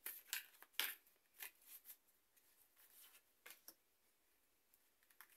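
Tarot cards being handled: soft flicks and rustles as a card is slid off the deck and laid on the table, a series of short quiet clicks, most of them in the first two seconds.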